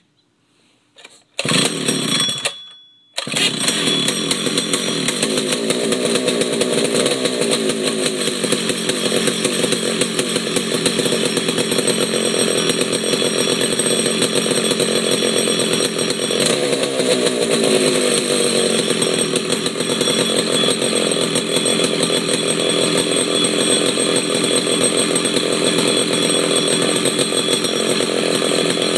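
A 1977 McCulloch Super Pro 125C chainsaw's two-stroke engine, cold-started with the decompression valve pushed in. It fires about a second in, dies away briefly, catches again about three seconds in and then runs steadily.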